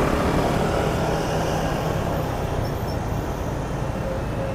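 Steady city street traffic noise: an even low rumble of motor traffic with no single vehicle standing out.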